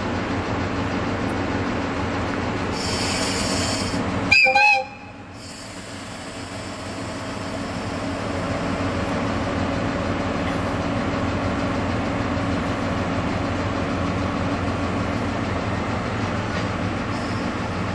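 DE10 diesel-hydraulic locomotive running with a steady engine note. A short air hiss comes about three seconds in, then one brief horn blast, the loudest sound. The engine then keeps running as the locomotive starts to move off.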